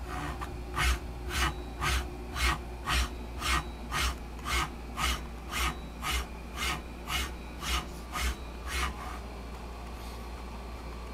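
Teknic ClearPath servo motor driving a ball-screw linear stage in rapid back-and-forth moves: a short rasping whir with a low thump on each stroke, about two strokes a second, sixteen in all, stopping about nine seconds in. The motor is being run at 3600 rpm or more, beyond what it is specified for.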